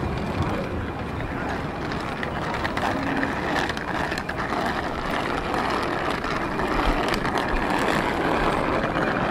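Busy city street ambience: a steady wash of outdoor noise with scattered clicks and knocks.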